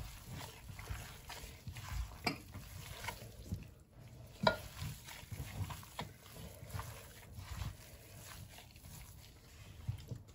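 Raw ground pork being squeezed and kneaded by a latex-gloved hand in a pan for naem: irregular soft, wet squishing, with two sharper clicks about two seconds apart.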